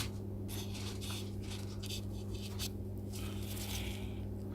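Steady low electrical hum with scattered light clicks and scrapes of small objects being handled on the bench, including a brief scratchy rustle about three seconds in.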